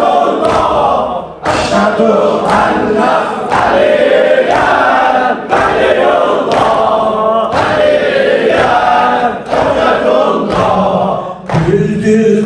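Group of men chanting a Shia mourning lament (noha) in unison, with a regular sharp beat about once a second.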